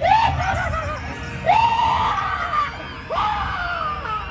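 A single voice giving three long, loud cries about a second and a half apart, each sweeping quickly upward and then held for about a second.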